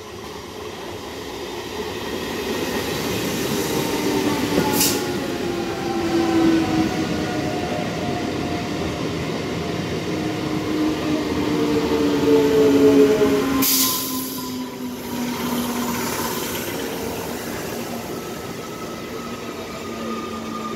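Three-phase EMU local train passing: wheels running on the track grow louder as it comes in, and the motor whine of its coaches sounds as several tones that slowly fall in pitch. There are two short hissing bursts, about five seconds in and a louder one near fourteen seconds.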